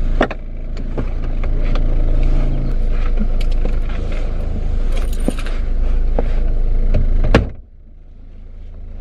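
A motor vehicle running: a steady low rumble with scattered clicks and knocks, which drops off sharply about seven and a half seconds in.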